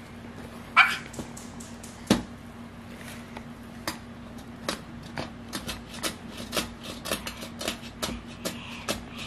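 Light crinkling and small taps as strips of masking tape are peeled and small plastic toys are handled on a wooden board, with a brief squeak about a second in and a sharper knock about two seconds in, over a steady low hum.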